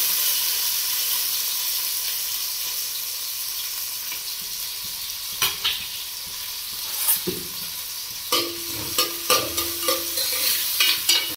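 Chopped onions and garlic sizzling in hot oil in a metal pot, the sizzle slowly fading. In the second half a metal spoon clinks and scrapes against the pot as they are stirred.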